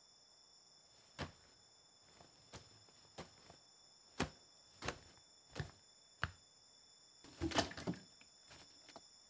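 Faint footsteps and knocks: a few irregular thuds, then four steps at a walking pace. Near the end comes a louder cluster of knocks and rattles as a plastic water jug is picked up and handled. Under it all is a faint steady high whine.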